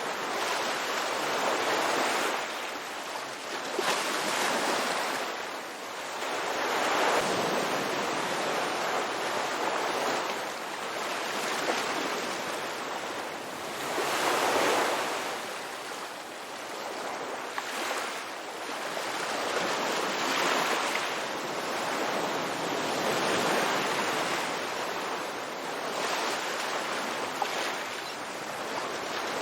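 Ocean waves breaking and washing onto a beach, the surf swelling and easing every few seconds.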